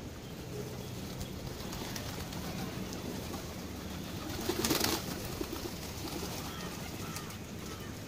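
Feral rock pigeons cooing softly while feeding, with a sudden burst of wing flaps about four and a half seconds in as a pigeon flies in to land among the flock.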